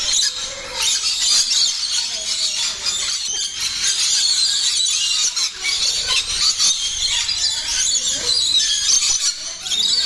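A flock of rainbow lorikeets screeching and chattering without a break, many high-pitched calls overlapping.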